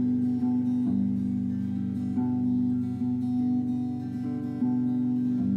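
Instrumental passage of a slow song: acoustic guitar playing ringing chords that change every second or so.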